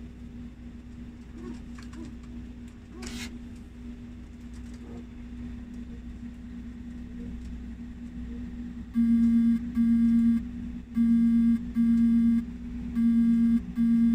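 A steady electrical hum, with a brief noise about three seconds in. From about nine seconds in, an electronic alarm beeps in pairs, one pair roughly every two seconds, much louder than the hum.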